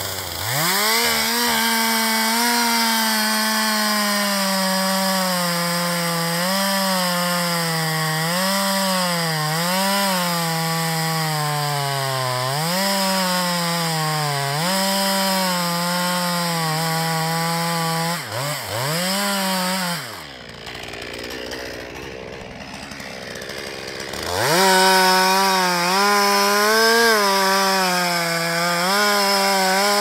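A two-stroke chainsaw runs at full throttle while cutting into the trunk of a large tree. Its engine pitch sags over and over as the bar bogs down in the wood, then picks back up. About two-thirds of the way through, the saw drops away for a few seconds, then comes back at high revs.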